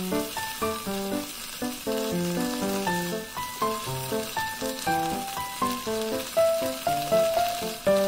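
Bok choy sizzling in hot oil in a frying pan as a spatula stirs and tosses it, over background music: a light melody of short notes.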